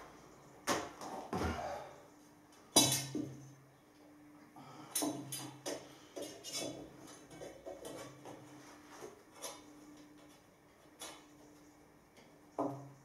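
Copper pipes and fittings knocking and clinking against the wall and a wooden board as they are offered up and handled: a run of irregular sharp knocks, the loudest about three seconds in.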